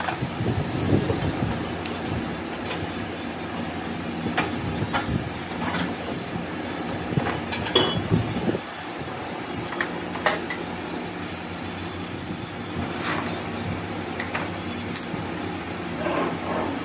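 Metal hand tools clinking and scraping against a cast-iron excavator hydraulic control valve block as its bolts are worked with a hex key, in sharp irregular knocks. A steady low mechanical hum runs under them.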